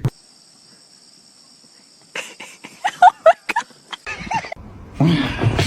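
Short chirping animal calls, several in quick succession, over a faint steady high whine; a louder, rougher call comes near the end.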